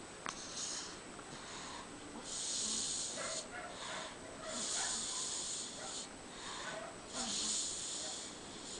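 A sleeping person snoring loudly: three breathy snores, each about a second long, coming a little over two seconds apart.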